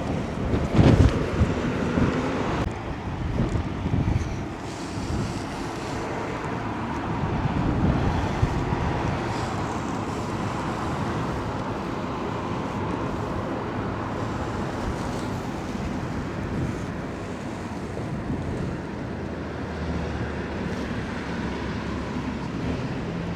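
Wind buffeting the microphone in uneven low gusts, strongest over the first few seconds, over a steady wash of outdoor street noise.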